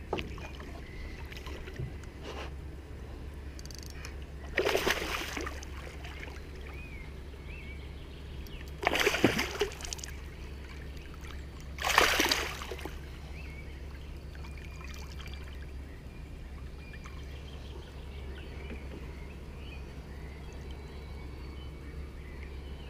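A hooked zander (pikeperch) thrashing at the water surface: three bursts of splashing, about five, nine and twelve seconds in, the middle one loudest and the last right beside the boat.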